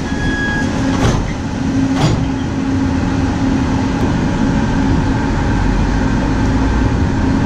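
Walt Disney World monorail train departing the station: a short beep and two knocks as the doors close, then a steady electric motor hum with a low rumble building as the train pulls away.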